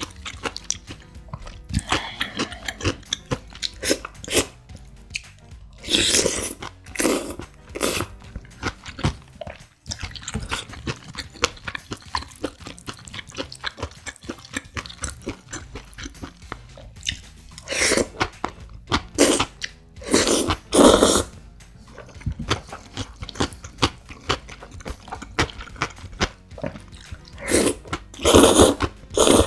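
Close-miked eating of creamy instant jjamppong noodles: several loud slurps of noodles, each about half a second to a second long, with wet chewing and small mouth clicks in between.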